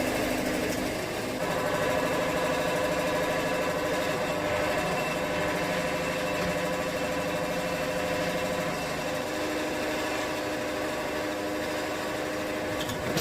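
Sawmill engine idling steadily after sitting unused for about a week.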